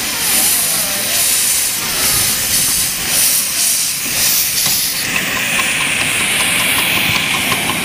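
Miniature steam tank locomotive moving off, hissing steam from its cylinder drain cocks in pulses. About five seconds in, the hiss turns steadier, with fast light ticking as the engine passes close.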